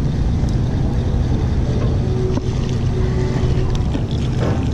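Boat motor running with a steady low hum, with wind noise on the microphone.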